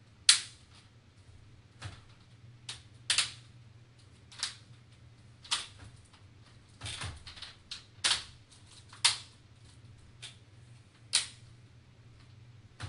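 Plastic laptop screen bezel being pressed back on, its clips snapping into place in about a dozen sharp, unevenly spaced clicks, roughly one a second.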